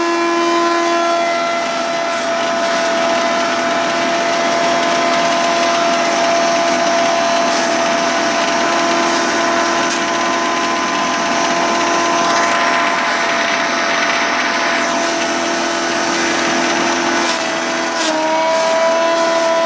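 Motor-driven shredder (grass cutter and hammer mill) running steadily while grinding dry feed ingredients, a loud steady whine over a rough grinding noise. Near the end its pitch sags briefly under load and then recovers.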